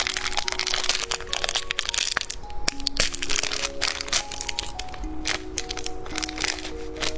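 Rapid, irregular sharp crackling and crunching from a peach-flavoured candy snack being handled and eaten, over background music of short held notes.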